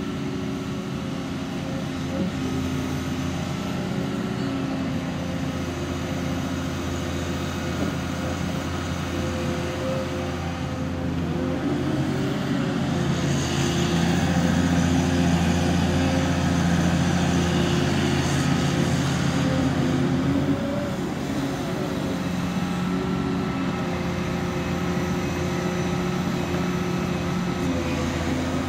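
Volvo EC210CL crawler excavator's diesel engine running steadily as the machine works its hydraulics, stripping turf with its bucket. The machine grows louder and brighter for several seconds in the middle, then settles back.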